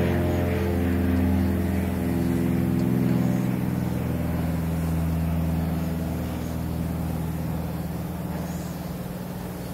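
Background music of sustained low chords, shifting from one chord to the next every second or two and slowly fading.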